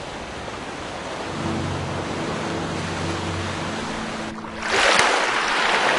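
Surf-like rush of water, steady at first, swelling into a louder surge like a wave breaking near the end. A low, held musical chord comes in about a second in under the water.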